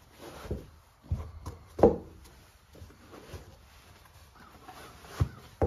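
Leather cowboy boots being pulled on: scuffing and rubbing, with a few thuds of boot heels on a wooden porch deck. The loudest thud comes about two seconds in, with two more near the end.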